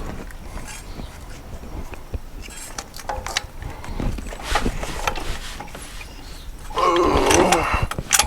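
Scattered clicks and clinks of hand tools and metal parts during work on an engine's EGR valve. About 7 seconds in comes a loud, wavering, groan-like voice sound that lasts about a second.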